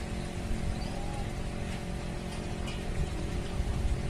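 Steady low rumble with a faint, even mechanical hum.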